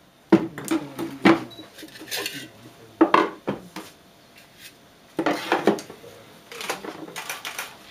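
Hollow plastic knocks, clunks and scrapes as a vaccine carrier is packed by hand, its foam insert and cold packs set in and shifted about; a handful of sharp knocks at irregular moments.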